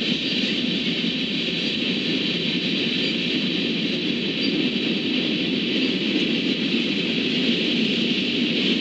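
Freight train cars, mostly covered hoppers, rolling past on the rails: a steady, even rolling noise with no horn or bell.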